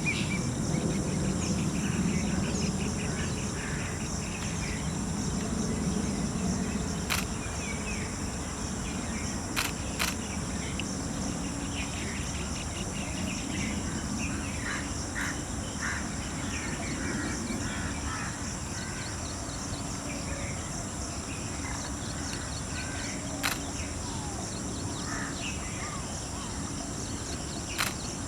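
Outdoor bird and insect sounds: a steady high insect drone with scattered bird chirps and calls, over a low rumble that is strongest in the first few seconds. A few sharp clicks stand out.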